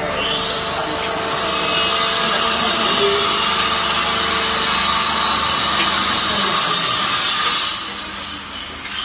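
Textile fiber baling machine running: a whine rises in pitch as it starts up, then a loud steady hiss lasts about six seconds before dropping away, and the rising whine comes again near the end.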